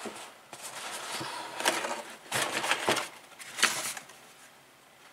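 Cardboard lid of a model kit box being worked loose and lifted off, with a few rustling, scraping bursts of cardboard on cardboard. The last scrape comes about three and a half seconds in, and then it goes quiet.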